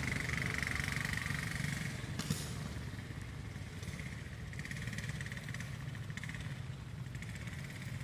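Outdoor background with a steady low motor hum and a high, finely pulsing buzz, and one sharp click a little over two seconds in.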